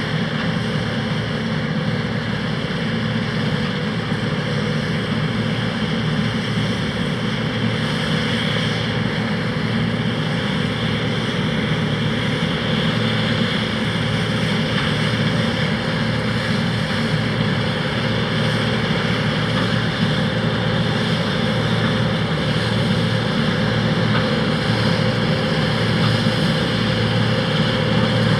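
John Deere 2264 combine harvester running steadily while harvesting barley: a continuous machine drone with constant whining tones and no change in pace.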